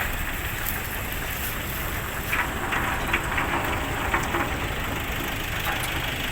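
Vehicle engine idling steadily, with a run of short clicks and light knocks about two to four seconds in.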